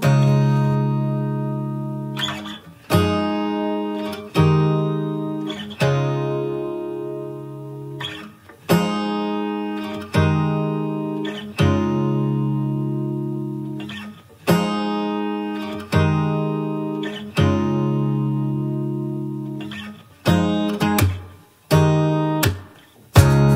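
Background music: strummed acoustic guitar chords, a new chord struck about every second and a half and left to ring out and fade.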